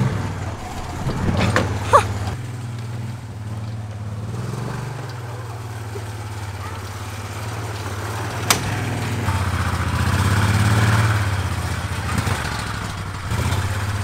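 Lifted golf cart running steadily as it drives over dirt mounds, its hum swelling about ten seconds in, with a sharp knock or two along the way.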